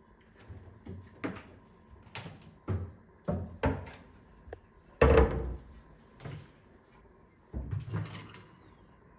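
Modular kitchen cabinet shutters and drawers being opened and shut, a series of knocks and thuds with the loudest about five seconds in.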